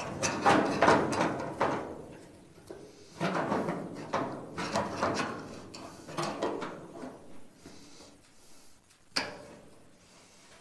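Old steel body panel scraping and creaking in a series of strains as its bottom edge is bent with locking pliers, with a sharp click near the end.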